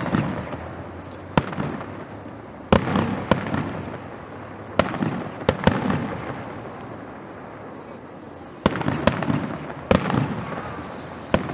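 Aerial fireworks shells bursting: about ten sharp bangs in irregular clusters, each followed by a rolling echo, with a lull of a few seconds in the middle.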